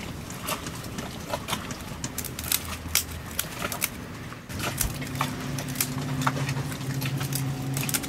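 An African grey parrot biting and chewing at a woven wicker plant basket: an uneven run of sharp little crunching clicks. A low steady engine hum comes in about halfway through.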